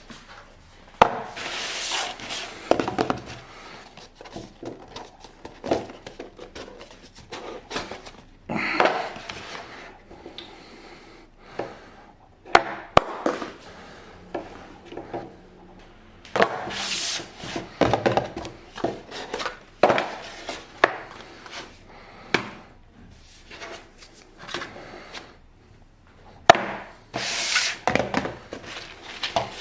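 Toy packaging and plastic figures being handled during an unboxing: irregular taps, sharp clicks and short bursts of rustling and rubbing.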